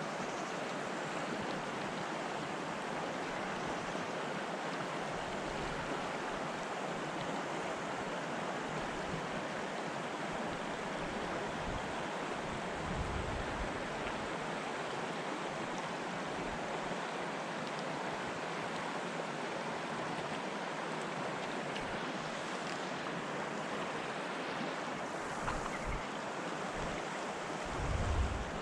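Rushing river water, a steady, even noise, with a couple of low thumps near the middle and near the end.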